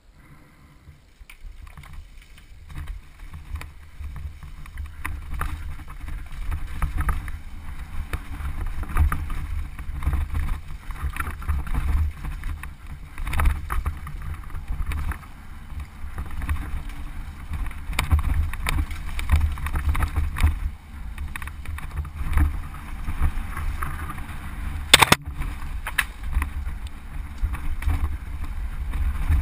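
Mountain bike descending a rocky dirt trail, heard from a camera on the bike or rider: wind rumbling on the microphone with the tyres and frame rattling over stones, getting louder over the first few seconds as speed builds. Near the end there is one sharp, loud knock.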